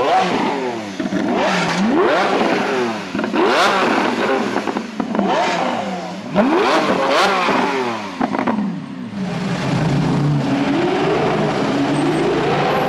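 Lamborghini Aventador's V12 engine being revved hard in quick blips, the pitch shooting up and falling back again and again. After about eight seconds this gives way to a steadier engine note that rises slowly near the end.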